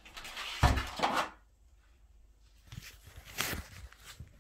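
Handling noise from TV parts being moved about: a sharp knock amid rustling early on, then a second short rustling scrape about three and a half seconds in.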